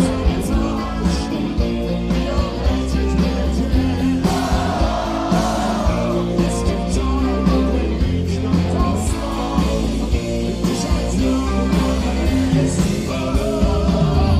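A rock band playing live through a PA: drum kit, bass and electric guitars, with a male lead singer's voice over them.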